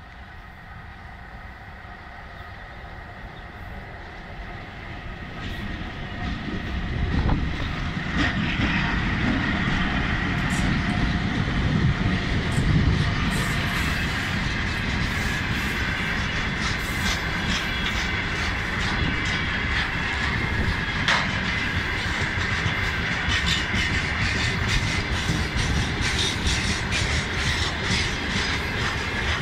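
Freight train of hopper wagons passing close by. It grows louder over the first seven seconds or so, then runs at a steady level: a dense rumble of wheels on rails with a steady high whine, and rapid clickety-clack of wheels over rail joints that thickens in the second half.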